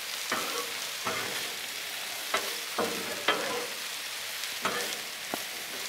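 Broccoli, onion and chicken sizzling on a hot Blackstone flat-top griddle, with metal spatulas scraping across the steel cooktop about seven times as the vegetables are stirred.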